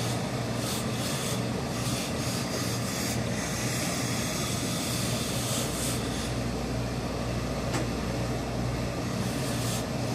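Steady machine hum of a tailor's pressing setup, while an industrial hose-fed steam iron is pushed over suit trousers. Short hissing spells come in the first few seconds and again twice later.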